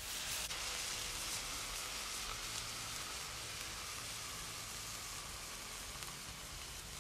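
80/20 ground-beef patties sizzling steadily on a hot flat-top griddle as they are pressed flat with a stainless steel burger press to sear them.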